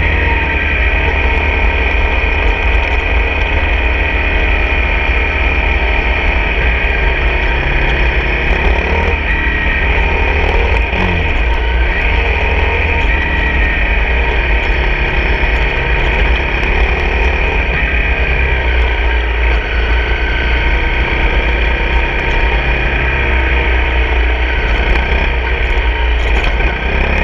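Honda CRF250 dirt bike's single-cylinder four-stroke engine running at road speed, under heavy wind rumble on the helmet-camera microphone.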